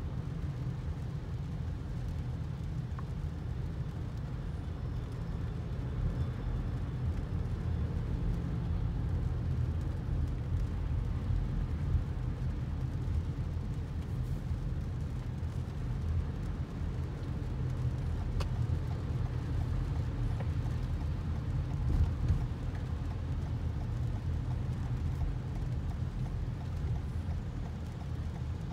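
Steady low rumble inside a car's cabin as it creeps along in slow freeway traffic in the rain.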